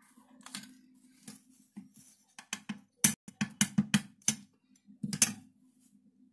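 Steel spoon clinking and tapping against bowls while curd is handled: a quick run of sharp clicks about halfway through and another cluster near the end, over a faint steady hum.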